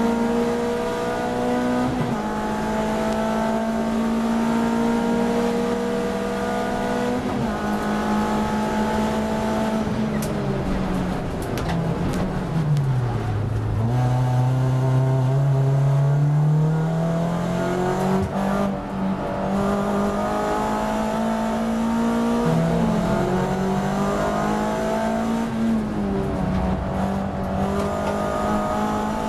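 In-cabin sound of a Volkswagen Lupo race car's engine driven hard. The engine note climbs and drops back at each gear change, falls to a low drone about halfway through as the car slows for a tight corner, then climbs again through the upshifts and drops once more near the end under braking.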